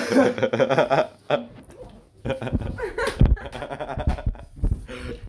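Laughter and excited voices, broken by several low thumps in the second half as a person moves and drops to a wooden floor, reacting to the burn of Scorpion pepper hot sauce he has just drunk.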